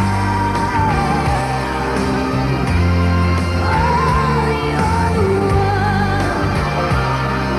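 Live pop-rock song: a female lead vocal sings long held notes with vibrato over a band with bass, guitar and keyboards.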